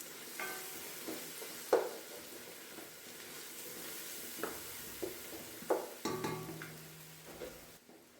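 Food frying in a pot with a steady sizzle, stirred with a spoon that scrapes and knocks against the pot several times. The sizzle drops away near the end.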